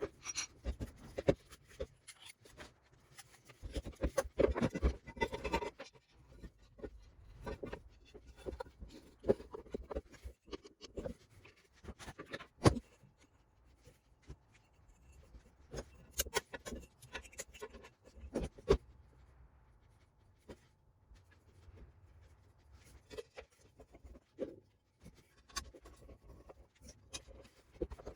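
Hand work on the rivet forge's metal: irregular scraping with scattered sharp knocks and taps, and a denser burst of scraping about four to five seconds in.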